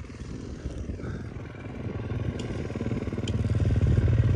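A motorbike engine running with a low, evenly pulsing note, growing louder over the second half as it comes closer.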